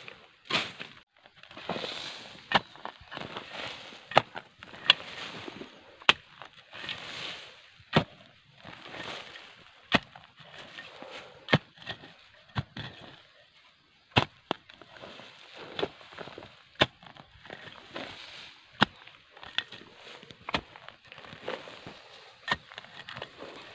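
A narrow metal digging blade chopping repeatedly into packed earth, with sharp strikes every second or two and rustling of leaves and stems between them.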